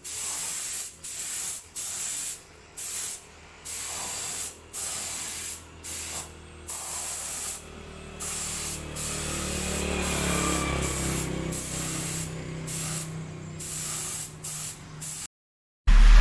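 Paint being sprayed onto a motorcycle frame in repeated short bursts of hiss, each about half a second to a second long with brief pauses between. A low steady hum joins about halfway through.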